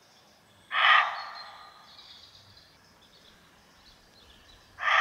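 Muntjac deer barking: two single barks about four seconds apart, each fading away over about a second.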